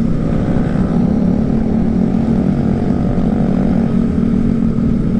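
Yamaha NMAX 155 scooter engine running at a steady cruise, with wind and road noise rushing past.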